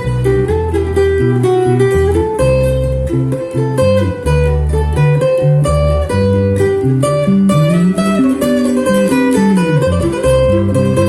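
Acoustic guitar playing an instrumental piece, plucked low bass notes under a melody line, with a few sliding notes near the end.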